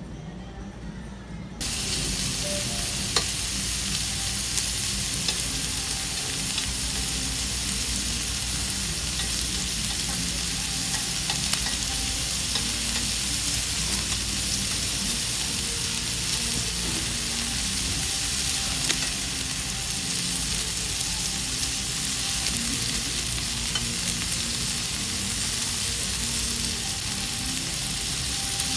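Pork sizzling as it grills: a steady frying hiss with scattered sharp pops of spitting fat, starting abruptly about a second and a half in.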